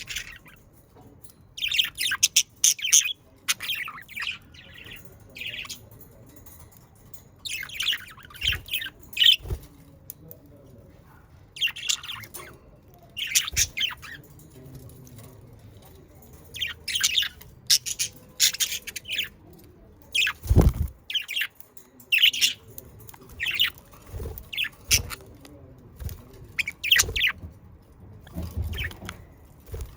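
Budgerigars chirping and chattering in short bursts of quick, high chirps, with a few low thumps in between, one louder than the rest about two-thirds of the way through.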